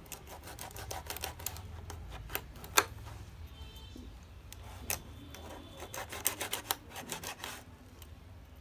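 Kitchen knife cutting a small pufferfish on a plastic cutting board: runs of quick taps and scrapes of the blade against the board, with one sharper knock about three seconds in and a short lull around four seconds. A steady low hum runs underneath.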